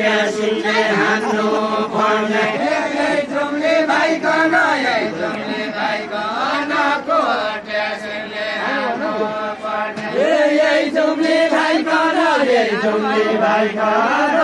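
Deuda folk singing from Far-Western Nepal: voices singing a slow, chant-like melody with long held notes that slide from pitch to pitch.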